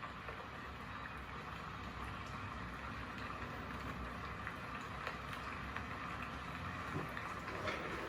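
Background ambience sound from a Samsung Q70R TV's Ambient mode scene, played through the TV's speakers: a steady soft hiss with scattered faint ticks.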